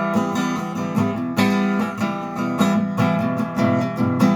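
Acoustic guitar strumming chords in an instrumental passage of a song, with no voice.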